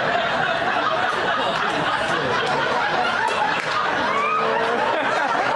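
Comedy club audience laughing: a steady, sustained wash of many people laughing and chattering at once.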